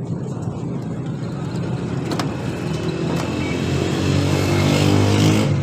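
A motor vehicle's engine running close by, growing louder over the last couple of seconds before cutting off suddenly, with a couple of sharp clicks along the way.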